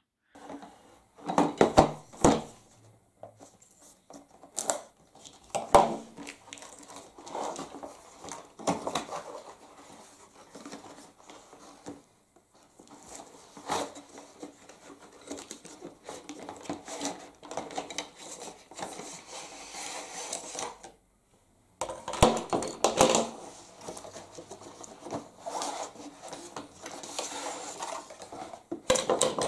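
Unboxing sounds: a cardboard box and its packaging rustling and scraping, with irregular light knocks and clicks as carbon-fibre shooting-stick sections are taken out and laid on a wooden table.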